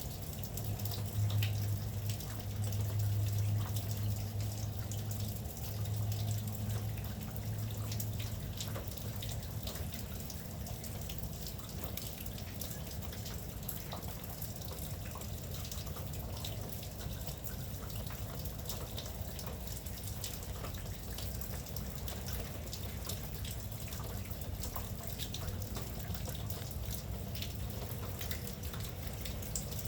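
Steady rain with individual drops dripping and tapping close by. A low hum runs underneath for the first eight seconds or so.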